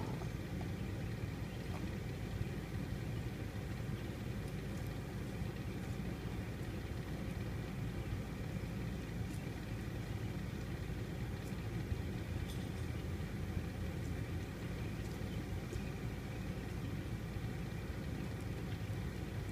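An engine idling steadily, a low, even running sound with a few faint clicks over it.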